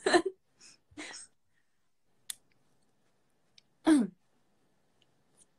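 A few brief murmured voice sounds, the last a short falling 'mm' about four seconds in, with a faint click between them; otherwise near silence.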